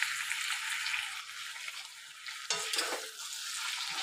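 Goat meat and potato pieces sizzling in hot oil in a kadai. From about two and a half seconds in, a spatula scrapes and stirs them around the pan with a few sharp strokes.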